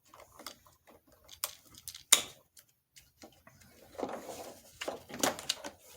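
Small clicks and rustles of hands working wiring: a plastic wire-tap connector being pressed closed on a turn-signal wire, with a sharp click about two seconds in and another just after five seconds.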